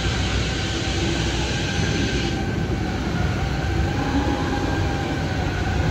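Steady low rumble and hiss of factory-hall background noise, with a few faint steady tones through it; the upper hiss drops away about two and a half seconds in.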